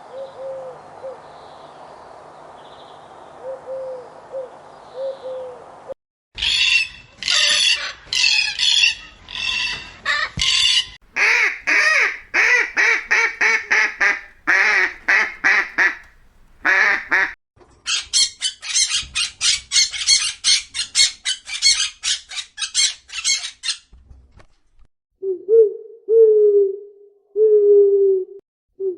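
A string of different bird calls, one kind after another: a faint stretch of short repeated notes, then loud repeated calls in a slower series and a fast rapid series, and an owl hooting several times near the end.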